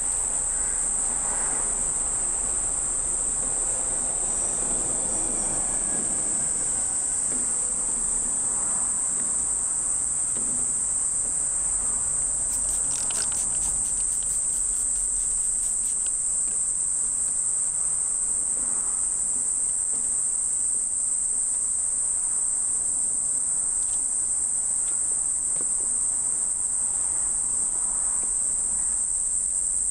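Insects droning steadily at a high pitch, with a quick run of spray-bottle squirts about halfway through.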